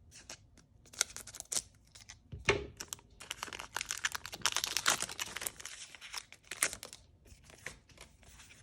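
Foil Pokémon card booster pack wrapper being crinkled and torn open: a run of irregular crackles and rips, thickest in the middle.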